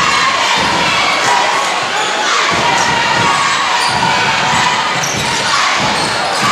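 A basketball dribbled on a hardwood gym floor, thumping about twice a second, over the steady chatter of a large crowd in the bleachers.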